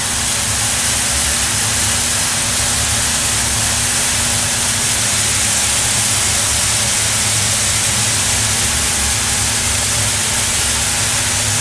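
Probat G75 coffee roaster's cooling tray at work after the roast: the cooling fan draws air through the roasted beans while the stirring arms turn them, a loud, steady rushing hiss over a steady low machine hum.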